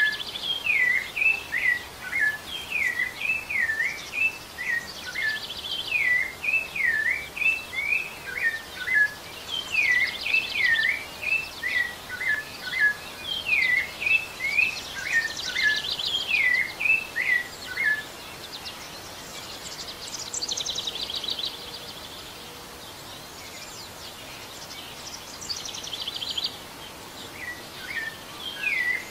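Rufous-bellied thrush singing: a run of short, repeated fluting whistled phrases, joined at times by faster, higher trilled notes. The whistling stops for about ten seconds after the middle, leaving only the high trills, and comes back near the end.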